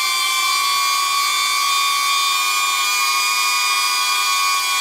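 DJI Neo mini drone hovering, its propellers giving a steady whine made of several even tones that holds unchanged throughout.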